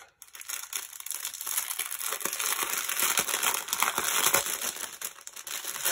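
Small plastic bags of diamond painting gems crinkling as they are handled: a dense, continuous crackle of fine clicks.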